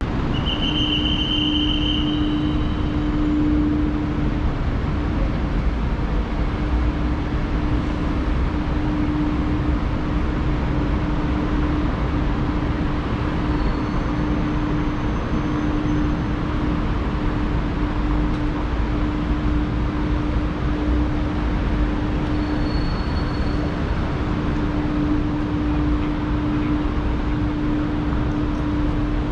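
Steady mechanical rumble and hiss with a constant low hum, typical of a large airport building's machinery and crowd-free hall ambience. A short high tone sounds briefly near the start, and two fainter ones come later.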